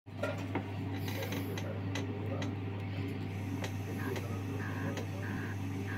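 Rotary tool with a rubber polishing wheel working the facets of a metal ball, its whine coming and going in short stretches about two-thirds of the way in as the wheel touches the metal. Before that, a series of light ticks and clicks over a steady low hum.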